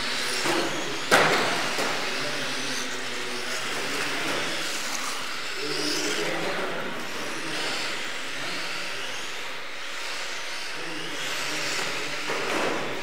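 Small electric radio-controlled cars running on a carpet track, a steady motor whine and tyre noise, with a single sharp knock about a second in.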